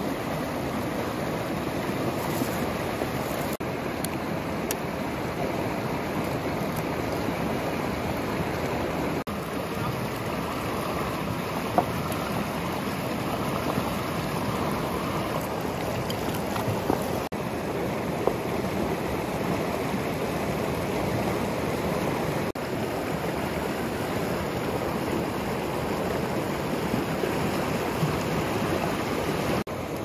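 Fast mountain river rushing over rocks: a steady, loud rush of water. There are a few brief clicks in the middle.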